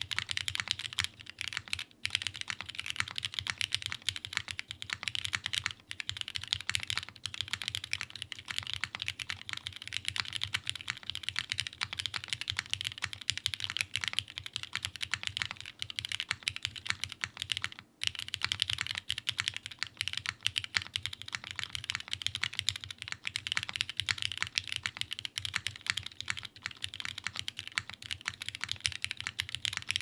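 Continuous typing on a custom 60% mechanical keyboard, a TGR x Singa HK Unikorn with an aluminium half plate in an O-ring tray mount, fitted with lubed Cherry Ultraglide Black linear switches and GMK keycaps: a dense, steady run of keystroke clacks, with a brief pause a little past halfway.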